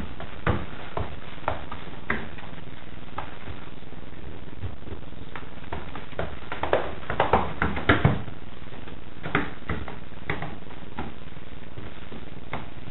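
Paintbrush laying water-based gloss onto a panelled door: scattered soft taps and knocks of the brush against the wood, with a quick run of them about seven to eight seconds in, over a steady hiss.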